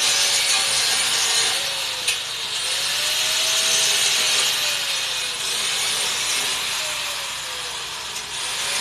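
Angle grinder grinding steel: a steady, harsh hiss, its motor pitch sagging and recovering as the disc is pressed into the work, with one sharp click about two seconds in.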